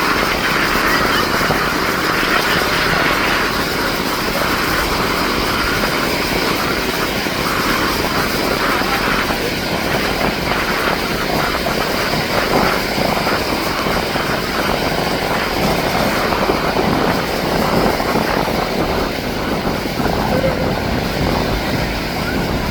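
Canadair CL-415 water bomber's twin turboprop engines running, a steady propeller-aircraft noise.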